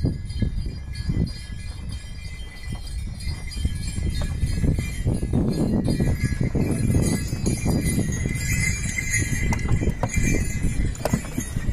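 Small harness bells jingling on a draught mare as she pulls a wooden farm cart at a walk, with hoofbeats and the rumble and knock of the cart's wheels. The bells ring out more clearly from about six seconds in.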